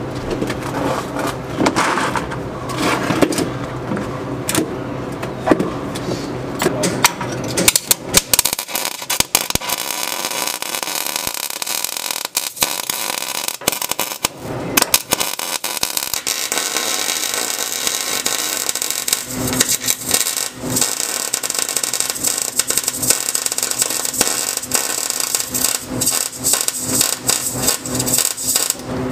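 MIG welder arc crackling steadily while a bead is run, starting about a quarter of the way in and stopping briefly a few times between passes.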